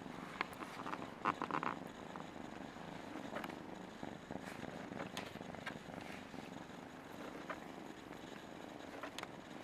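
Bengal kitten purring steadily while being stroked, with a few brief rustles and clicks near the start.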